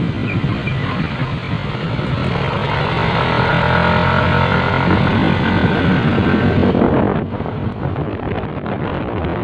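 Vehicle engine running on the move, with road and wind noise; the engine note is strongest in the middle, and the sound changes abruptly about seven seconds in.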